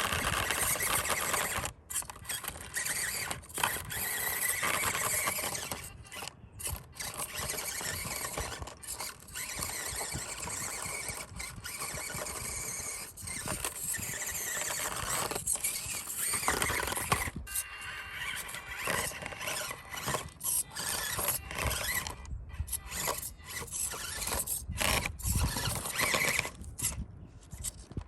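Small RC crawler's electric motor and geartrain whining as it drives, stopping and starting again many times with the throttle.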